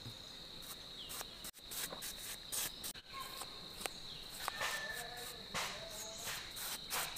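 A steady, high-pitched insect drone, with short scratchy swishes of a paintbrush being stroked over a clay sculpture and a few faint bird whistles.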